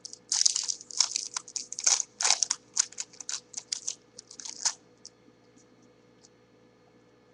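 A trading card pack's wrapper being torn open and crinkled in the hands: a quick run of sharp crackles and rips that stops a little past the middle.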